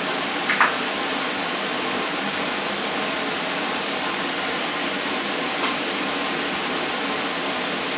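Kitchen range hood exhaust fan running with a steady whoosh. A couple of light clinks of bowls and utensils come near the start, and a fainter one about six seconds in.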